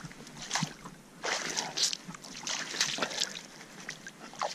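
Shallow water splashing and sloshing in several irregular bursts as hands swish through it at the water's edge.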